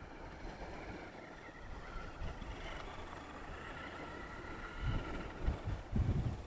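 Steady mechanical whine of a motor with a few faint wavering tones, and gusts of wind rumbling on the microphone near the end.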